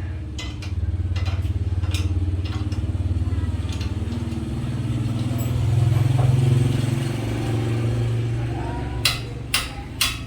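A vehicle engine running steadily, swelling louder midway through, then a few sharp metallic clinks near the end.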